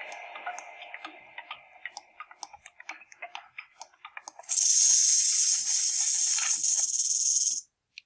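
Faint fading music with scattered light ticks, then, about four and a half seconds in, a rattlesnake's tail rattle buzzes in a loud, steady, high hiss for about three seconds before cutting off suddenly. It is the warning sound the snake makes by shaking its rattle very fast when it feels threatened.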